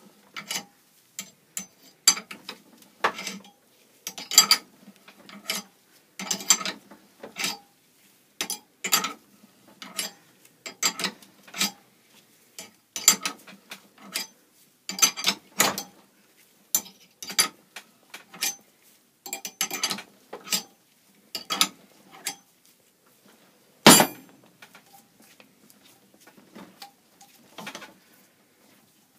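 Steel spanner and three-jaw puller clicking and clinking in short bursts about once a second as the puller's forcing bolt is turned to draw a badly seized blade boss off a mower engine's crankshaft. Near the end comes one sharp, loud crack, the sort of sudden jolt the stuck boss gives as it shifts under the puller's pressure.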